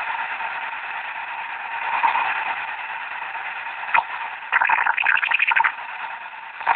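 Radio transceiver's speaker hissing with band static as it is tuned upward from about 27.9 to 28.3 MHz, out of the CB band into the 10-metre amateur band. There is a sharp click about four seconds in, then about a second of rapid choppy crackle before the steady hiss returns.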